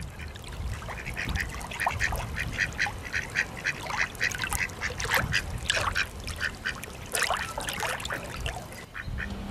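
Ducks quacking, a continuous run of short calls several per second, over a low rumble.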